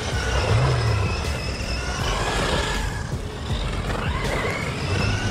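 Wltoys 12402-A 1/12-scale RC buggy's brushed 550 electric motor whining, its pitch rising and falling as the throttle changes. The tyres scrabble and slide on loose dirt.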